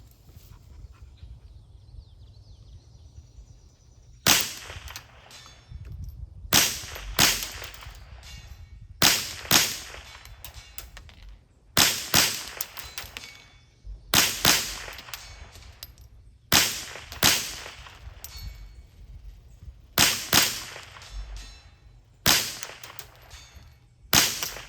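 .22 long rifle firing subsonic CCI standard velocity rounds: nine sharp shots spaced about two to three seconds apart, the first about four seconds in.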